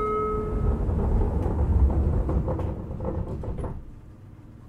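Inside a JR Kyushu 817-series electric train car (KuMoHa 817-1009): a short electronic chime, then a heavy low rumble with scattered knocks that dies away about four seconds in.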